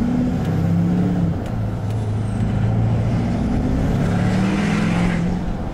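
Tuned Chevy Silverado 2500 Duramax diesel accelerating hard, heard from inside the cab with the window cracked. The engine note shifts in pitch as it pulls, and a turbo hiss builds over the last couple of seconds, then eases off a little before the end.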